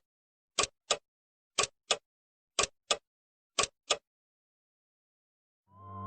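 Clock-like ticking: a pair of sharp ticks once a second, five times, stopping about four seconds in. Music begins fading in at the very end.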